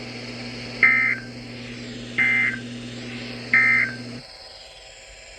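Emergency Alert System end-of-message data tones: three short, identical bursts of the digital AFSK signal, evenly spaced, marking the end of the alert. A low hum underneath cuts off just after the third burst.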